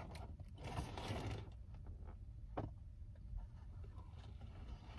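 A steady low hum with a few faint rustles and taps from a paper poster being handled and held up.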